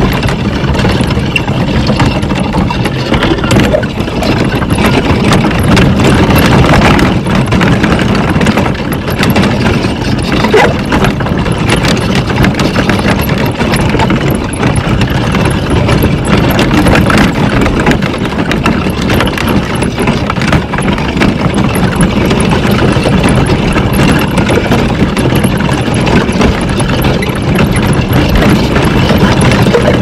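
Wooden carriage cart rolling over a dirt track, a steady rumble of wheels with constant small rattles and knocks, with wind.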